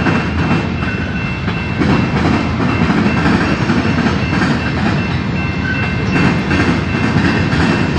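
Freight train's cars rolling slowly past, steel wheels rumbling steadily on the rails, with a thin steady high-pitched tone over the rumble.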